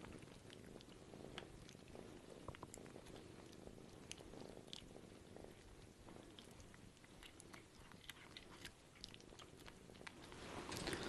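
Faint small clicks and smacks of a kitten licking and chewing wet cat food off a feeding syringe, against near silence.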